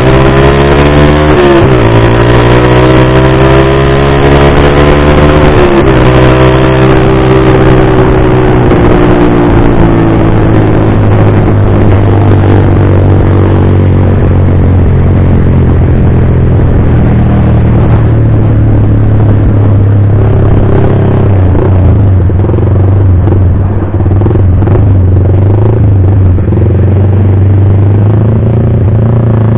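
Yamaha Vixion R's single-cylinder engine through a Pro Liner TR1 full-system aftermarket exhaust, heard while riding. The pitch climbs under throttle and drops sharply twice, about 1.5 and 6 seconds in, as it shifts up. It then holds a steady cruise that slowly falls as the throttle eases off.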